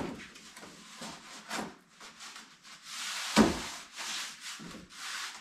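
Pink rigid foam insulation panels scraping against a wooden subfloor frame as they are pressed into a snug fit, in a series of short rubbing strokes. One louder thump about three and a half seconds in, with a knock at the very start.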